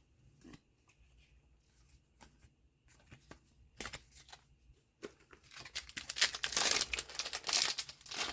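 A few light clicks of cards being handled, then about three seconds of loud crinkling and tearing as a foil trading-card booster pack wrapper is ripped open.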